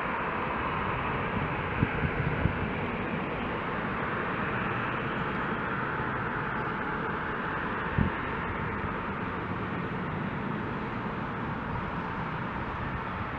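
DB class 442 Talent 2 electric multiple unit rolling slowly along the platform track, a steady running and rolling noise, with a single low thump about eight seconds in.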